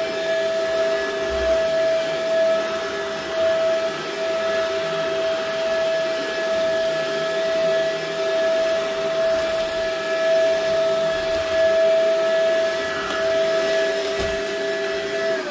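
Shark upright vacuum cleaner running steadily as it is pushed over an area rug, a constant motor whine over a rushing suction hiss. At the very end it is switched off and the whine begins to fall in pitch as the motor spins down.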